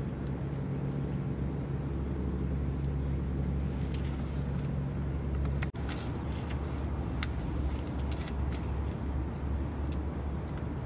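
Steady low engine rumble with a few faint ticks; it breaks off for an instant a little past halfway, and the hum changes after the break.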